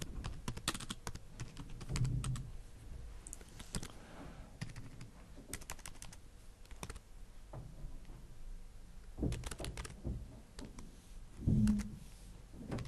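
Typing on a computer keyboard: irregular bursts of keystrokes with pauses between them. A few soft low thuds are mixed in, the loudest near the end.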